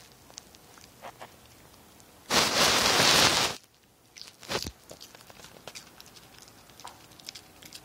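A small dog chewing a sugar snap pea, with small crunches and clicks scattered through. About two seconds in, a loud rush of noise lasts a little over a second.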